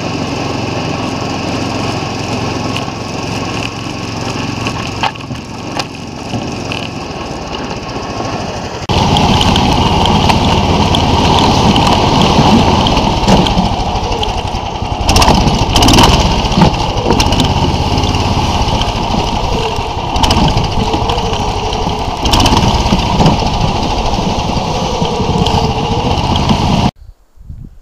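Small engine of a SnowDog tracked snow machine running as it travels over snow, mixed with a steady rattling clatter. It gets louder about nine seconds in and cuts off suddenly near the end.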